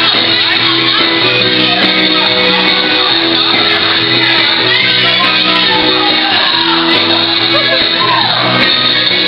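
Loud music playing in a hall, with people shouting and singing over it.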